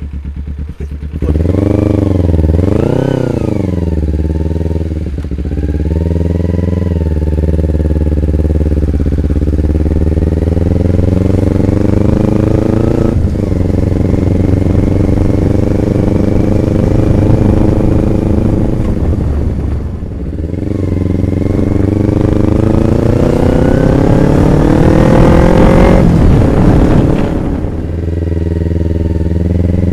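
Kawasaki Ninja 250R's carburetted parallel-twin engine, loud. It idles briefly and is blipped twice quickly, then the pitch climbs slowly with sudden drops about 13 and 20 seconds in. A long rise to a high peak follows before the revs fall away and climb again.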